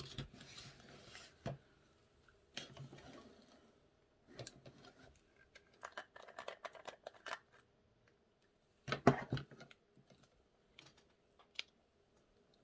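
Hands handling a cosmetic cream jar and its cardboard box: scattered clicks, taps and short rustles as the jar is lifted out and its screw lid twisted off, with a louder cluster of clicks about nine seconds in.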